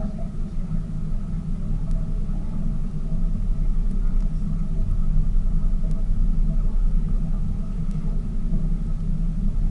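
Tour boat's engine running steadily under way: a constant low rumble with a faint steady hum above it.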